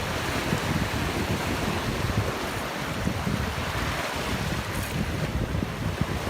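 Wind buffeting the microphone in gusts over steady sea noise.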